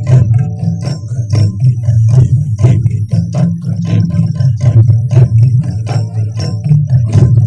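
Show soundtrack music: quick, even percussion strikes, several a second, with jingling, over a deep sustained bass.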